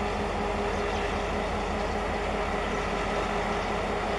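Diesel-electric locomotive engine running steadily at low speed or idle, an even hum with a few held tones and no horn.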